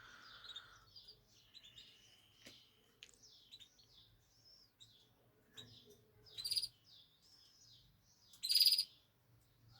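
Caged pet birds chirping and twittering softly, with two louder, harsher calls about six and a half and eight and a half seconds in.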